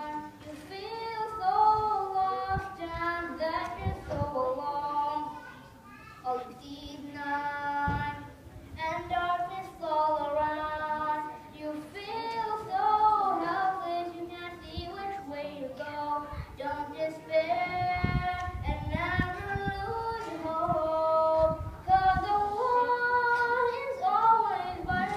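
A solo voice singing an Islamic nasheed, a fairly high melodic line in phrases a few seconds long with held, wavering notes, and no instruments.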